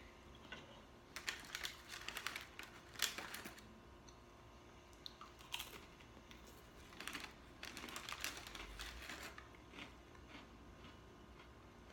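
Quiet eating at a table: two spells of quick, irregular clicks and crunches from a metal spoon in a ceramic bowl of clam chowder and from chewing, one starting about a second in and a longer one in the middle.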